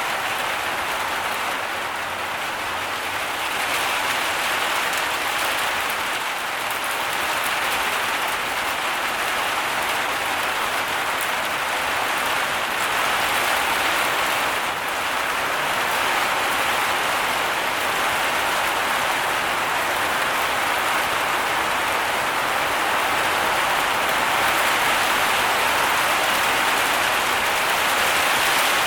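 Heavy rain pouring steadily, a dense even hiss of drops with no breaks.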